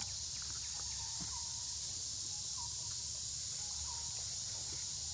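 Steady high-pitched insect drone, with a short rising chirp repeating about every second and a half.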